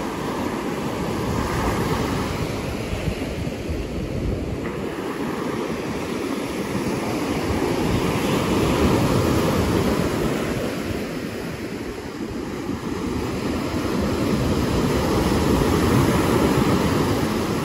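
Surf breaking and washing up a beach, with wind on the microphone. The sound swells about halfway through and again near the end as waves come in.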